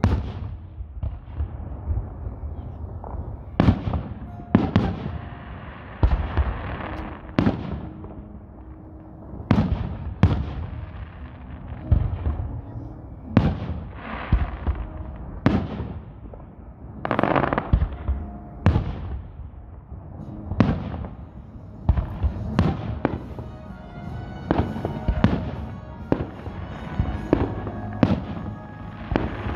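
Aerial firework shells bursting one after another in a fireworks display, a sharp bang every second or two.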